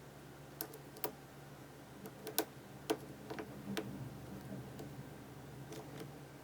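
Sharp, irregular clicks of a lock pick working the pin stack of a Master Lock No. 532 padlock during single-pin picking under light tension, about ten clicks spread unevenly across a few seconds.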